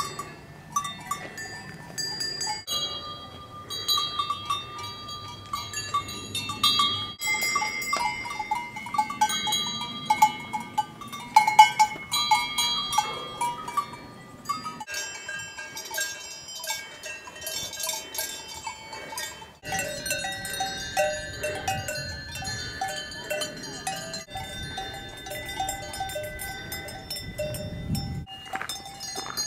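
Several cowbells on grazing cows clanking and ringing irregularly, bells of different pitches overlapping. The mix of bells changes abruptly several times.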